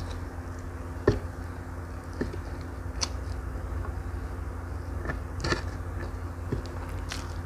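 Close-miked eating: a person chewing mouthfuls of fried Maggi noodles and rice eaten by hand, with a few sharp mouth clicks and smacks scattered through, over a steady low hum.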